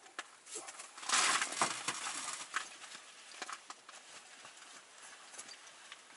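Rustling of heavy winter clothing and gear as people shift about, with a louder rustle about a second in and a few light clicks after it.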